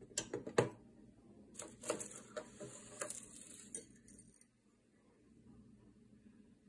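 Light metal clicks from the aluminium-alloy blades of toy claws being handled, then the jingle and clink of a metal ball-chain dog tag being picked up, stopping about four seconds in.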